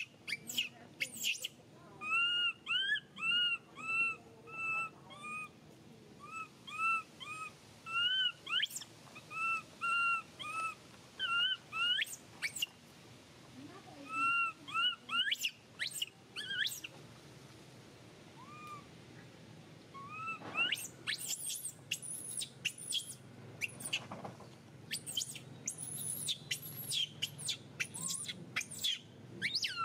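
Baby long-tailed macaque crying: a string of short, arched whimpering calls, several a second, pausing now and then. In the last third the cries turn into higher, shriller squeals. It is the distress crying of an infant being weaned off its mother's milk.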